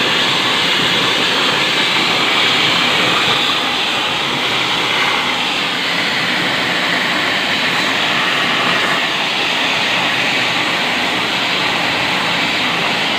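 Steady loud hiss of a high-pressure water spray washing an air conditioner's indoor unit, with the cleaning pump running.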